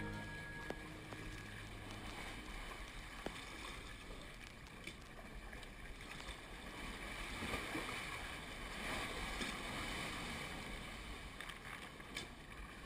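Sea water sloshing and washing against a rock face around a kayak, with a few light knocks. The wash swells a little past the middle.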